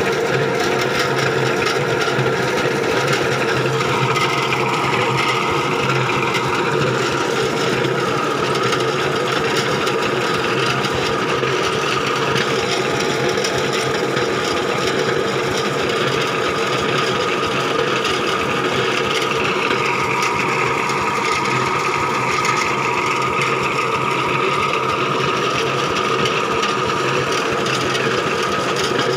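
Portable borewell drilling rig running steadily, its square steel drill rod turning in a wooden plug fitted over the casing pipe, over the steady hum of the rig's engine.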